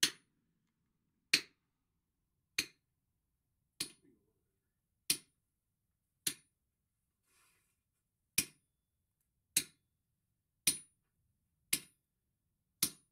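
A sledgehammer strikes a handled splitting chisel driven into a red-hot steel bar on the anvil: eleven sharp metallic blows, about one a second, each with a brief high ring and a short pause near the middle. The chisel is splitting the bar lengthwise.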